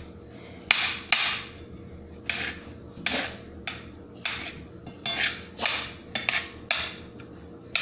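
A kitchen knife chopping baby bella mushrooms on a cutting board: about a dozen sharp chops at an uneven pace of one or two a second.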